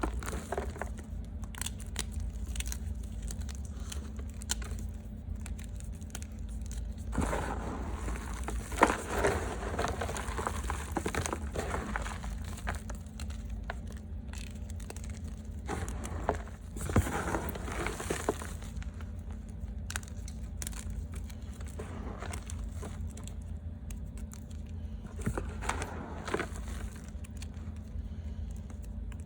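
Reformed gym chalk crunching and crumbling close to the microphone, in several bouts of crackly crunches a few seconds long, over a steady low hum.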